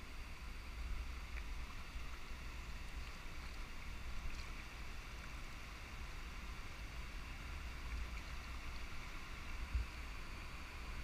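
Wind rumbling on a kayak-mounted camera's microphone over a steady hiss of moving river water, with a few faint ticks and one dull thump near the end.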